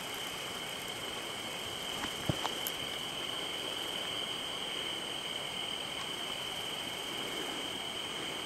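Steady chorus of night insects, a continuous high-pitched trill, with a few small clicks about two seconds in.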